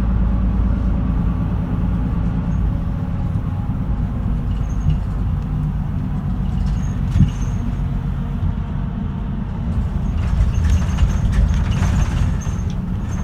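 A route bus's engine and road noise heard from inside the cabin, a steady low drone. There is one sharp knock about seven seconds in, and the sound grows louder and more rattly for a couple of seconds near the end.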